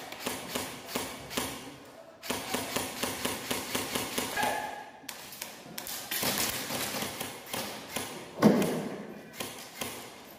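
Airsoft guns firing in a rapid string of sharp cracks and taps, several a second, with brief breaks, and BBs hitting the debris around. One louder thud comes about eight and a half seconds in.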